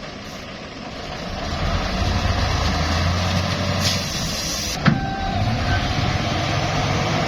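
Heavy dump truck's diesel engine running, getting louder about a second in. A short hiss comes about four seconds in, followed by a sharp knock.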